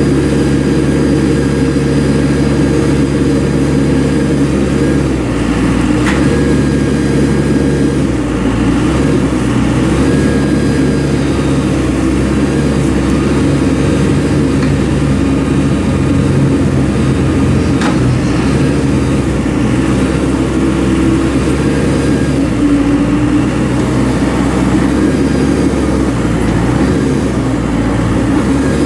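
Diesel engine of a 2007 Komatsu WB142-5 backhoe loader running steadily, its pitch shifting slightly a few times. Two sharp clicks, one a few seconds in and one past the middle.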